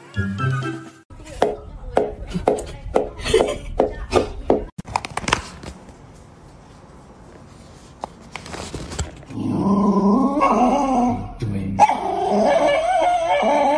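Small dog barking in a quick run of short barks, then a longer stretch of wavering whining vocalizations.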